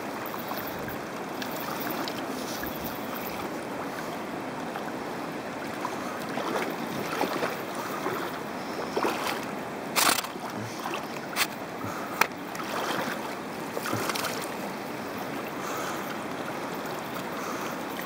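Steady rush of fast river water flowing, with a few sharp knocks about two-thirds of the way through.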